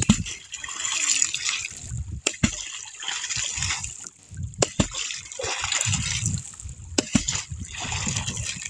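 Wooden poles plunged repeatedly into the sea from an outrigger boat, a splash every second or two, with a few sharp wooden knocks. This is the pole-pounding used to scare fish toward a set gill net.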